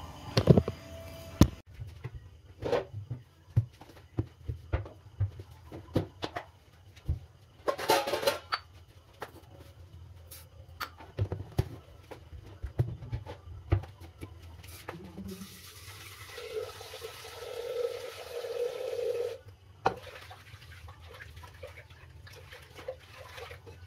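Kitchen work sounds: a string of sharp knocks and clinks of pots and utensils being handled, and water running from a kitchen tap for a few seconds past the middle.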